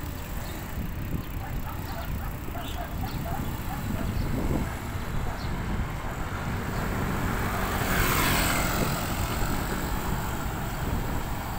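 Road traffic with a steady low rumble and wind on the microphone; a vehicle passes, swelling up and fading away about eight seconds in.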